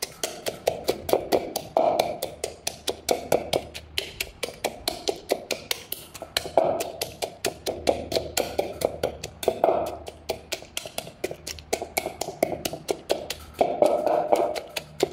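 A wooden pestle knocking in a mortar full of som tam ingredients, in a quick, steady rhythm of about four or five knocks a second. The pounding is light, to combine the vegetables rather than pulverize them.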